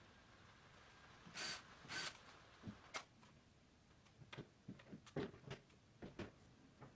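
Cabinet door and its concealed hinges being handled and fitted to the cabinet: two short rasps about a second and a half in, then a run of light clicks and knocks as the door is lifted and hung.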